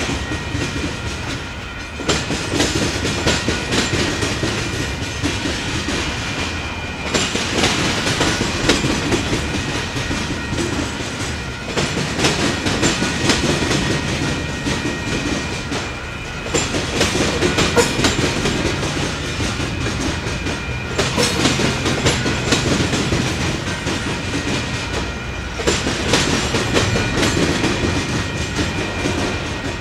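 Loaded covered grain hopper cars rolling past, their steel wheels clacking over the rail joints and the crossing diamonds. The sound rises and falls every four to five seconds as each car goes by.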